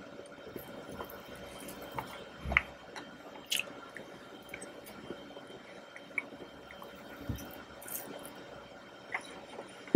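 Close-up mouth sounds of eating soft chocolate mousse cake: wet squishing, chewing and lip smacks in scattered short clicks and pops, a few of them sharper than the rest.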